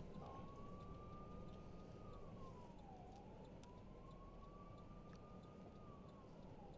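A siren wailing faintly. Its pitch holds high, then dips and climbs back, twice, over a low steady rumble.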